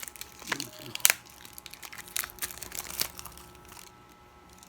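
Product packaging crinkling and crackling as it is handled and opened, with a sharper crackle about a second in. It dies away after about three seconds.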